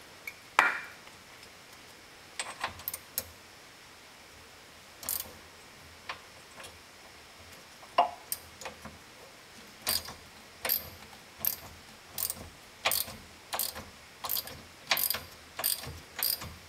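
Socket ratchet clicking as it turns a nut welded onto a seized, broken steel bolt. A few scattered clicks and knocks at first, then from about ten seconds in a steady run of clicks, about one and a half a second.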